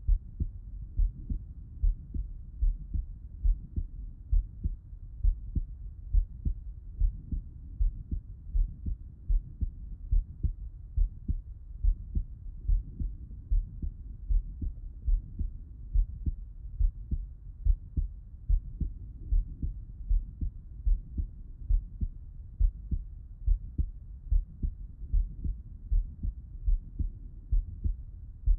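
A man's heartbeat heard through a Littmann stethoscope, with him lying on his left side. The heart sounds come as a steady, regular run of dull low-pitched thumps, each followed by a quieter gap.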